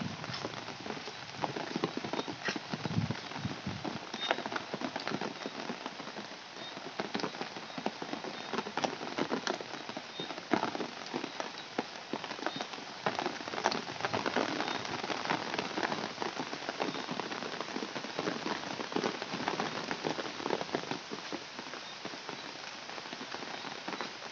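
Steady rain falling, with drops tapping on an umbrella overhead in a dense, irregular run of small ticks.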